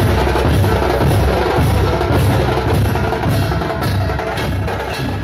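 Loud drum-led percussion music with a steady beat of deep drum strokes and sharp hits, beginning to fade near the end.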